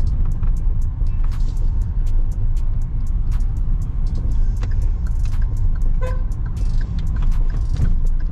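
Hyundai i20 petrol hatchback driving, heard from inside the cabin: a steady low engine and road rumble with frequent small clicks and rattles. A short horn toot sounds about six seconds in.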